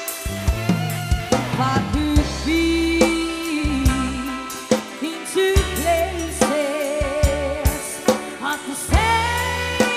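Band music: a drum kit and bass keep a steady beat under a held melody line with vibrato.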